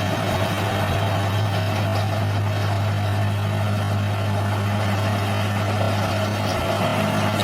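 Engine of a heavy earthmoving machine running steadily at a constant speed, a low, even hum with no change in pitch.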